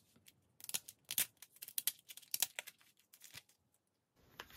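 A sealed paperboard trading-card pack being torn open and pulled apart by hand: about three seconds of short, crackling paper tears and rustles.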